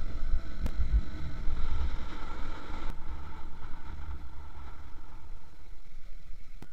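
Wind buffeting and road rumble on a motorcycle-mounted camera, with the motorcycle running underneath. The rumble is heavier for the first three seconds, then changes abruptly at a cut to a lighter, steadier drone.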